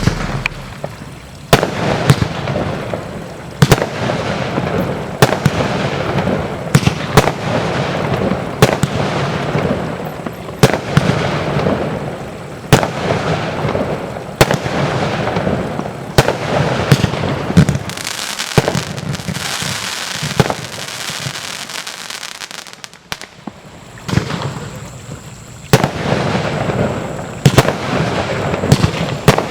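Kristallblitz compound firework box firing: sharp shot launches and aerial bursts about once a second, with a noisy wash of breaks between them. About two-thirds of the way through, the shots give way to a hissing stretch and a short lull, then the shots resume.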